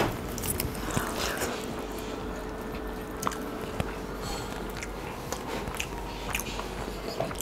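A person chewing a mouthful of rice and mutton curry close to a clip-on microphone, with many small wet mouth clicks.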